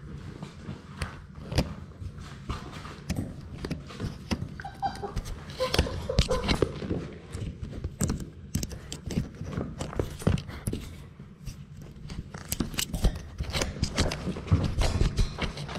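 A Labrador Retriever puppy nosing and mouthing a GoPro camera up close: irregular clicks, knocks and scrapes on the camera housing with fur rubbing against the microphone.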